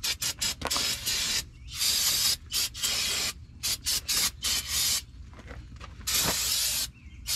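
Aerosol brake cleaner being sprayed in repeated bursts, some very short and a few lasting up to about a second, as a front disc brake assembly is sprayed down.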